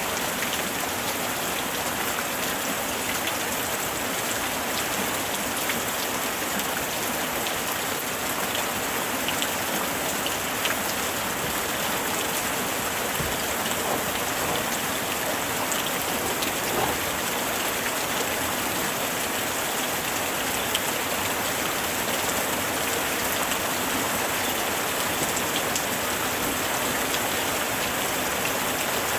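Steady rainfall with many small drops pattering on a surface, an even hiss with scattered individual drop ticks.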